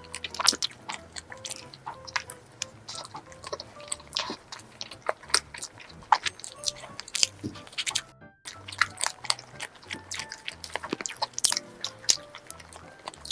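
Close-up eating sounds of biting and chewing a cream-filled donut, many sharp wet mouth clicks, over soft background music. The sound drops out briefly about eight seconds in.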